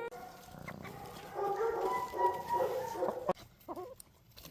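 Domestic chickens clucking, a busy chatter for a couple of seconds that falls away near the end.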